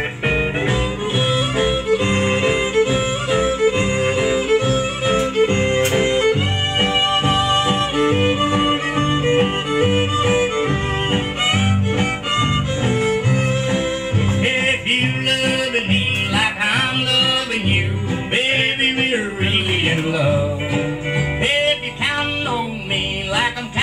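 Background country-style music with fiddle and guitar over a steady beat.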